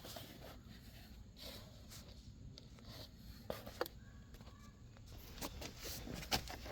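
Faint, scattered clicks and taps from an oil bottle and a new oil filter being handled while the filter is filled with oil.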